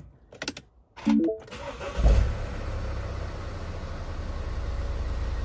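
Mini Countryman diesel engine starting on a freshly fitted battery: it fires about two seconds in and settles straight into a steady idle. A short tone sounds just before it catches.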